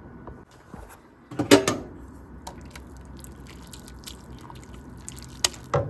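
Water dripping and trickling from cooked egg noodles draining in a strainer after rinsing, with a sharp knock about one and a half seconds in and a few small clicks, one near the end.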